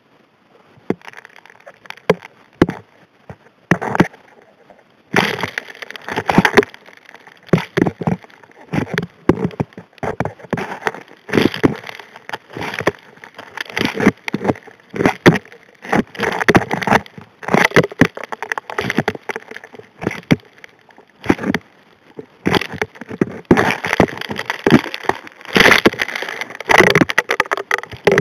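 Rocks and gravel clattering against the steel nozzle of an M625 HD P gold hand dredge as it sucks up river gravel, heard underwater. A few scattered knocks at first, then about five seconds in a dense, irregular rattle of stones.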